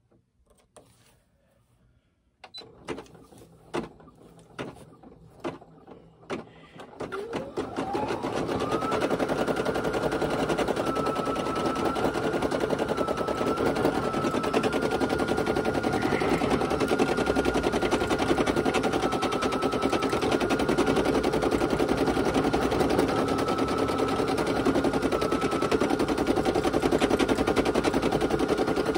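A few scattered clicks, then a Brother PE800 embroidery machine starts up about seven seconds in. Its motor whine rises in pitch as it comes up to speed, then it stitches steadily in a rapid run of needle strokes under a high whine that wavers slightly in pitch.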